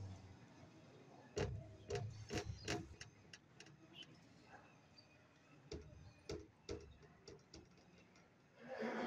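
Scattered faint clicks and knocks in a quiet prayer hall, a few close together about a second and a half in and again around six to seven seconds. A man's voice begins to rise near the end.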